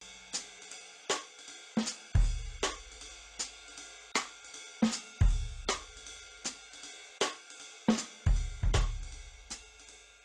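Sparse drum-kit beat as background music: light cymbal and snare hits about every 0.7 seconds, with a deep bass note roughly every three seconds.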